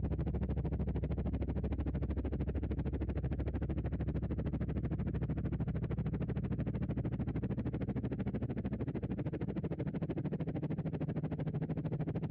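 Background synthesizer music: a steady, low, sustained drone.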